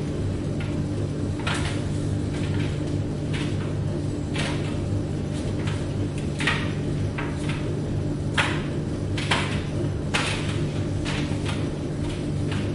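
Tumble dryer running: a steady motor and drum hum with irregular knocks, one or two a second, as the load tumbles against the drum.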